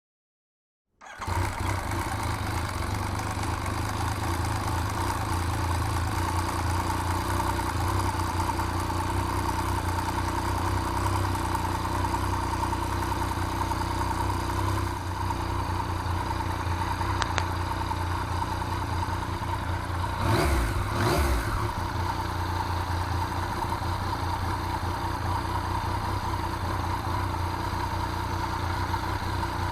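Yamaha MT-09 inline three-cylinder engine idling steadily after its cam chain has been adjusted to cure the model's common rattle, with two quick throttle blips about two-thirds of the way through. It cuts in about a second in.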